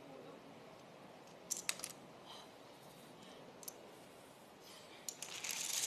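Domino tiles clicking together as they are handled and stacked: a few separate clicks, then a quicker run of clattering near the end.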